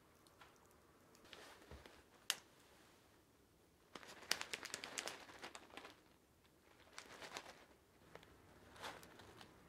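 Plastic bag of temari-fu (small dried wheat-gluten balls) crinkling as it is handled, in a few short bursts with the busiest stretch near the middle. A single sharp click comes a couple of seconds before.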